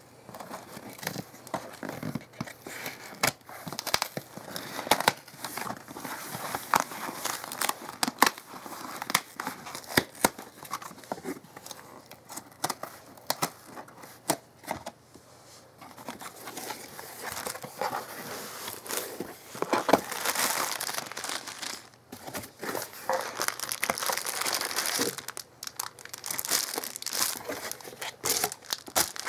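Scissors snipping and tearing packing tape on a cardboard shipping box, then the box being opened and handled, with cardboard and plastic wrapping rustling and crinkling in irregular bursts.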